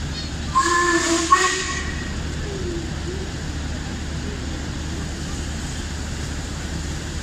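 Steam whistle of the approaching Jubilee-class steam locomotive 45690 Leander sounding about half a second in, a pitched, hissing blast of about a second with a brief break in the middle. After it comes a steady rumble as the locomotive draws nearer.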